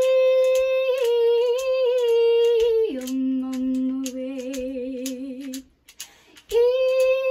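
A woman sings without words, holding a long high note for about three seconds, then dropping about an octave to a lower note with vibrato. After a brief break near the end she starts another long high note, while a hand shaker keeps a steady beat.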